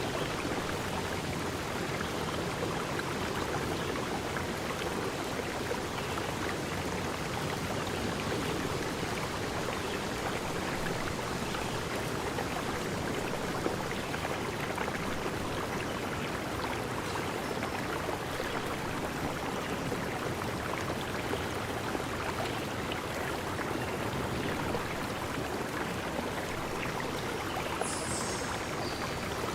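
Water of a stream flowing steadily, an even running-water sound with no change in level.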